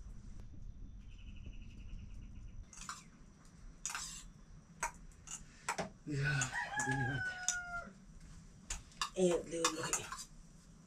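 A rooster crowing once, about six seconds in: a call of about two seconds that ends in a long, slightly falling note. Before it come a few sharp clicks.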